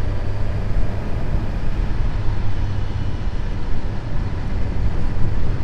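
Suzuki GSX-S1000GT's inline-four engine running at a steady cruise, a constant low hum, under steady wind rush.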